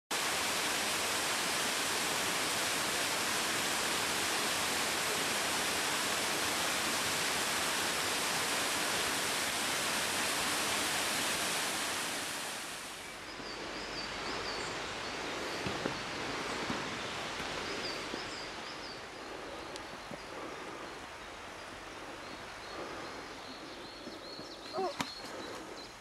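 Duruitoarea waterfall: a steady rush of falling water for about the first twelve seconds. It then gives way to a much quieter forest ambience with faint high bird chirps now and then and a few light knocks near the end.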